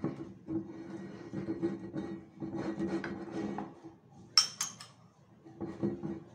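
Metal spoon scraping around inside a small ceramic bowl, with two sharp ringing clinks of the spoon against the bowl about four seconds in.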